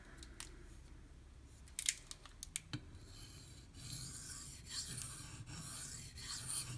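A steel knife blade scraping in repeated strokes across the 2000-grit side of a Venev bonded diamond sharpening stone. A few light clicks come about two seconds in, before the strokes begin.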